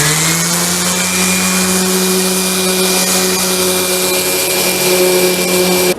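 Electric sander running on wood, sanding a proud side-piece edge flush and rounding over edges. Its motor whine climbs to a steady pitch in the first second over a loud hiss of sanding, then stops abruptly at the end.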